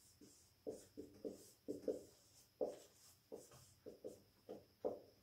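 Dry-erase marker on a whiteboard, writing words in quick short strokes: a faint series of brief squeaks, several a second.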